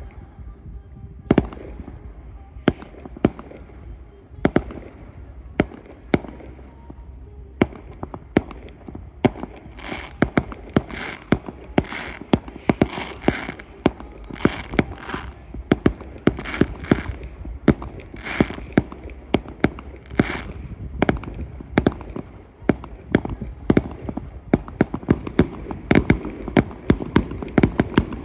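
Fireworks display: aerial shells bursting in a long, irregular series of sharp bangs, several a second at times, coming thicker near the end.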